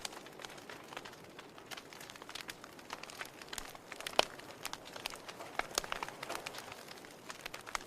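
Wood fire in a fireplace crackling: irregular sharp pops and snaps over a soft steady hiss, with one louder pop about four seconds in.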